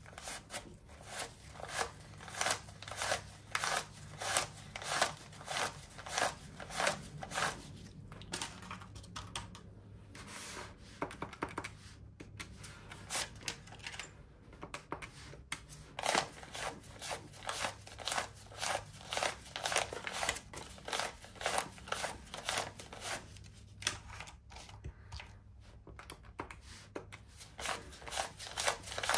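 Paper banknotes being counted by hand, each bill flicked off the stack with a crisp papery swish, about two a second with a few short pauses.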